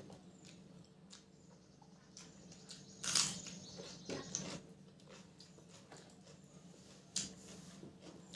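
Close-up eating sounds: a person chewing mouthfuls of rice and curry, with a few short, louder bursts of mouth noise about 3, 4 and 7 seconds in.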